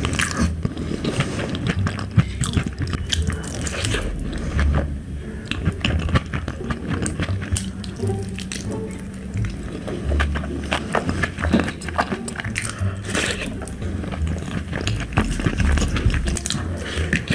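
Wet chewing and mouth sounds of a person eating rice mixed with dal and mashed potato, a steady run of small wet smacks and clicks.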